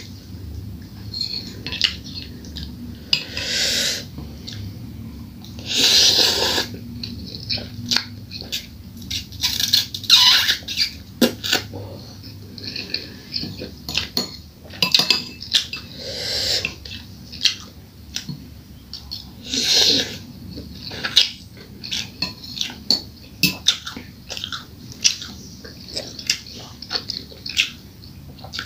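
A metal spoon clinks and scrapes against a bowl of fried instant noodles in many sharp taps, mixed with close-up mouth sounds of eating, including several longer noisy bursts.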